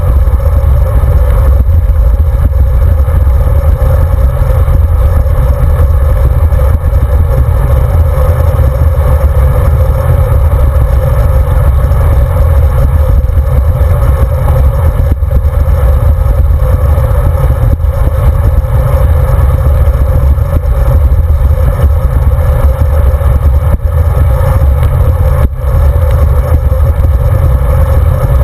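Loud, steady wind buffeting on the microphone of a camera mounted on a road bike's handlebars, mixed with the rumble of the tyres rolling on asphalt.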